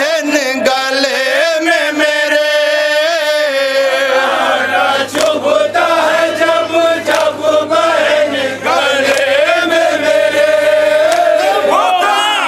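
A group of men chanting a noha, a Shia Muharram lament, in unison with a lead reciter over a microphone, the sung lines gliding up and down without a break.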